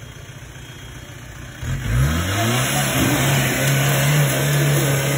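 A 4x4 off-road vehicle's engine idling, then revved up sharply about a second and a half in and held at high revs.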